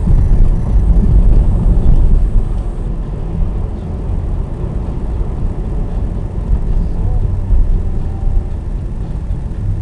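Car driving noise heard inside the cabin through a dashcam's built-in microphone: a loud, steady low rumble of engine and road, strongest in the first couple of seconds.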